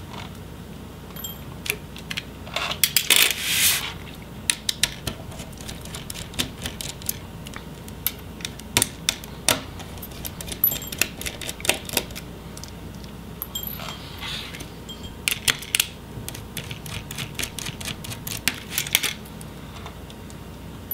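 Scattered clicks and metallic clinks of a small screwdriver backing out laptop hinge screws, and of the loose screws and metal display hinges being handled and set down on the plastic back cover.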